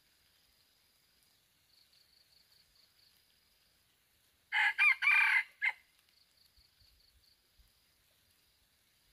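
Red junglefowl rooster crowing once, a short crow of about a second in a few connected parts ending with a brief clipped note. A faint high insect trill runs underneath.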